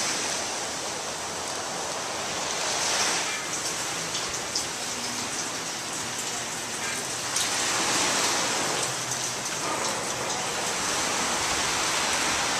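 Steady rain falling, a dense hiss with scattered drop ticks, swelling slightly about three seconds and eight seconds in.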